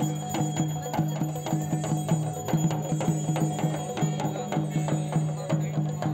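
Music with a quick, steady percussion beat over a low sustained tone.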